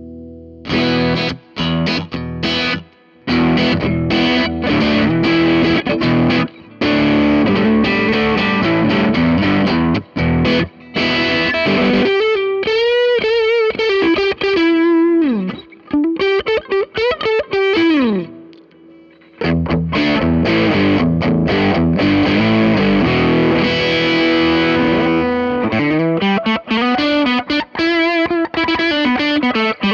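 Ibanez RG550 electric guitar played through an MXR Custom Badass '78 Distortion pedal: distorted riffs and chords with short stops, a lead line with string bends and wide vibrato, and slides down the neck, with a brief pause just past the middle.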